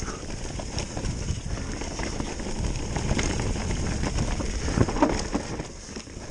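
Mountain bike descending fast on a dirt forest singletrack: tyres rumbling over the ground, with the bike rattling and knocking over bumps and roots, and wind on the microphone. A few louder knocks come about five seconds in.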